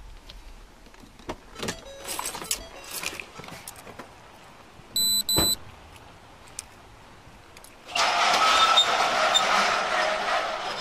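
Clicks and knocks from a squad car door and the officer's handling in the first few seconds, then a double electronic beep about five seconds in. From about eight seconds in comes a loud, steady rushing noise.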